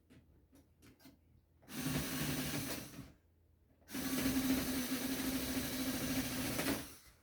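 Power drill running in two bursts, about a second and then about three seconds, with a steady motor whine, backing screws out of an old Sharp TV's casing. A few faint clicks come before the first burst.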